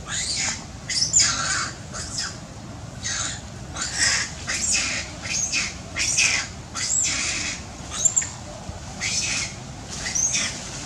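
Macaques shrieking: repeated short, high-pitched squeals, about two a second, many sliding down in pitch.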